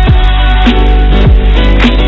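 Background music with a steady beat: bass drum hits about every two thirds of a second under sustained instrument chords.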